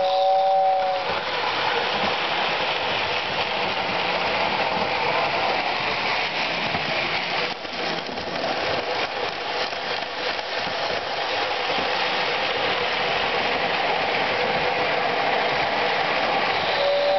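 Lionel O-gauge toy train running on three-rail tinplate track: a steady rumbling clatter of wheels and motor. A two-note train whistle fades out about a second in and sounds again near the end.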